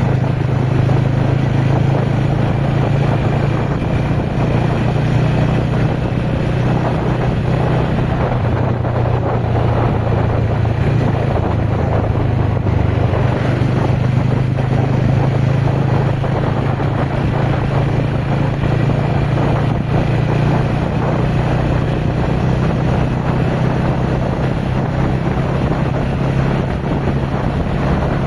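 TVS Ronin single-cylinder motorcycle engine running at a steady speed while being ridden, with wind noise on the microphone.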